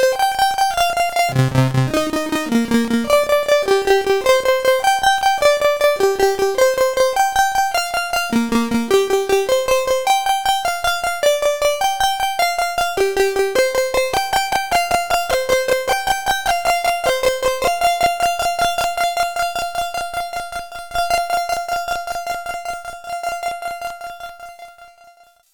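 Eurorack modular synthesizer music: a sequenced lead melody of short, rapidly pulsed notes from a Mutable Instruments Braids over a Plaits-clone bass line. The bass drops out about ten seconds in. The lead then settles into one repeated note that fades out near the end.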